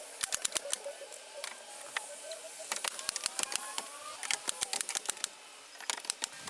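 Quick runs of sharp, light taps, several a second, coming in bursts with short pauses, with birds chirping faintly behind.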